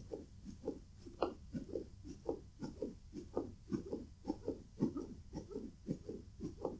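Rhythmic chest compressions on a plush dog CPR mannequin, about two a second, each press giving a short, faint, muffled pulse.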